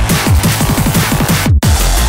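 Loud electronic dance music with rapid falling bass sweeps and a brief drop-out about one and a half seconds in.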